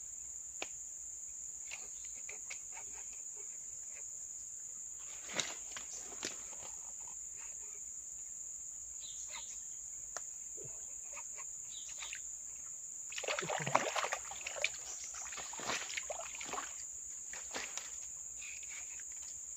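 Steady high-pitched insect drone, with scattered clicks and rustles and a louder patch of rustling and scuffing about thirteen to fourteen seconds in.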